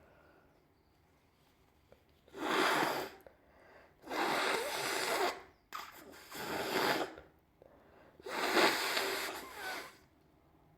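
A person with a cold blowing a congested, snotty nose into a tissue four times. Each blow is a noisy rush of about a second, with short pauses between them.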